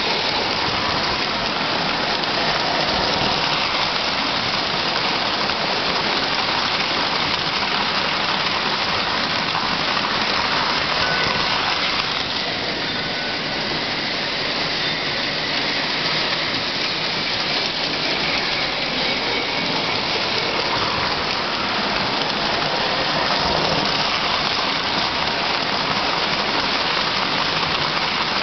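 Lionel O-gauge model trains running on three-rail track: a steady rattling whir of metal wheels on rail and the locomotives' motors, easing slightly about halfway through as the nearest train moves off.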